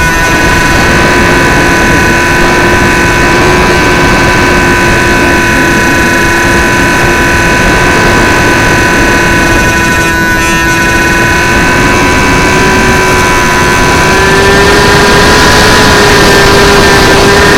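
XK A700B RC airplane's electric motor and propeller whine heard from on board, a steady hum that rises a little in pitch with more throttle near the end, under heavy wind rush on the camera's microphone.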